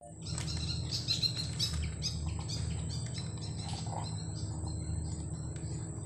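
Small birds chirping, many short quick chirps that are thickest in the first few seconds, over a steady low hum and a thin, steady high-pitched tone.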